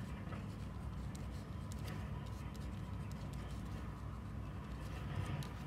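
Pen writing on paper: short scratching strokes and light taps as figures are written, over a steady low background hum.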